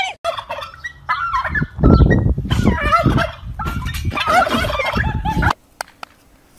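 A turkey gobbling several times over a heavy low rumble. Both cut off suddenly near the end.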